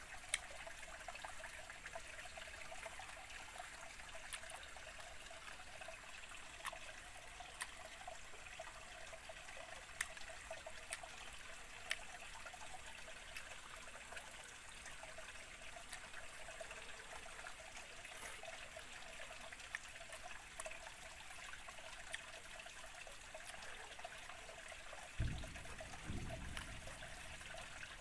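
Steady trickle of a small stream running over rocks, with a few faint sharp clicks and a brief low thump a little before the end.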